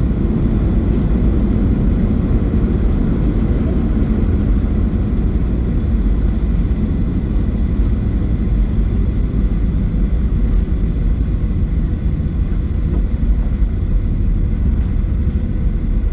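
Steady low rumble in the cabin of a Boeing 737-800, the noise of its CFM56-7B jet engines and the airframe, holding even with a few faint steady whines above it.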